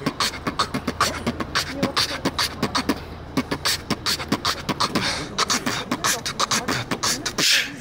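Human beatboxing: fast, rhythmic mouth percussion of kicks, snares and clicks, with voice-scratch effects imitating a DJ's turntable, and a long hissing burst near the end.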